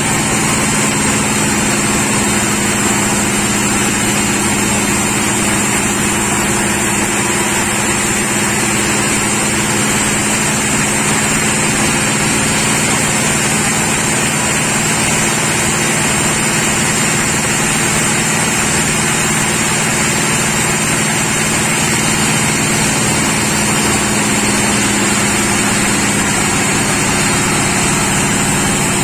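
Sawmill machinery running with a steady, unchanging engine-like hum, with a faint high whine above it.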